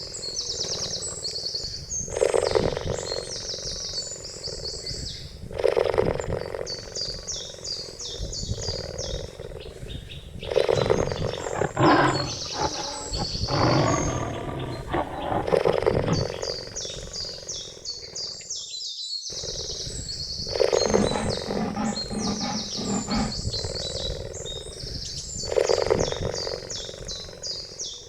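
Cheetah calling, loud calls coming every few seconds with a busier run of calls in the middle. A steady high-pitched chirping carries on in the background.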